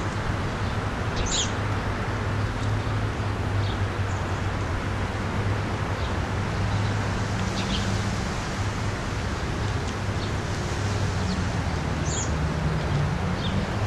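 Steady low hum and hiss of background noise, with a few short, thin, high bird chirps scattered through it, about four in all.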